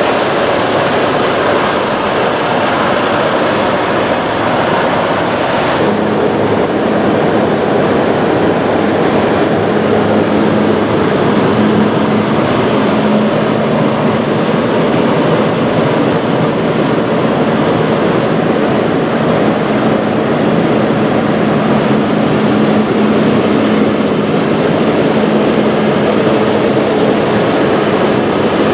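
Semi truck's diesel engine idling close by, a loud, steady rumble. A steady low hum joins it about six seconds in.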